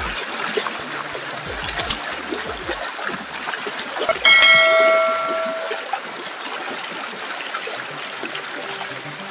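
Steady rush of a shallow river running over rocks. About two seconds in comes a mouse-click, and about four seconds in a bright bell chime rings and fades over a second and a half: the click-and-ding sound effect of a subscribe-button animation.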